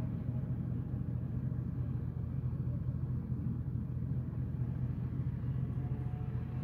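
Diesel engine of a two-masted wooden gulet running under power: a low, steady drone.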